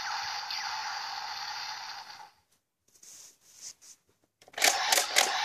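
Kamen Rider Genesis Driver toy belt playing its looping electronic standby music through its small speaker, cutting off about two seconds in. Near the end a few sharp plastic clicks as the belt's handle is pushed to activate the lockseed.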